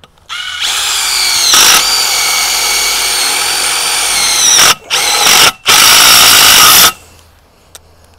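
Cordless drill driving self-tapping screws into metal greenhouse truss tubing. A motor whine rises as it starts, runs about four seconds, then comes in two shorter bursts with brief stops between.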